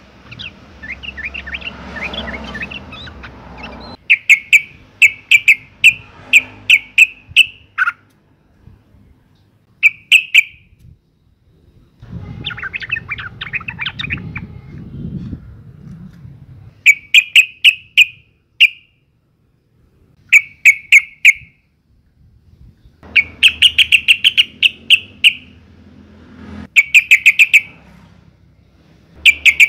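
Female yellow-vented bulbul (trucukan) giving its breeding-season calls: short bursts of rapid, bubbly notes repeated every few seconds, with softer chattering in between.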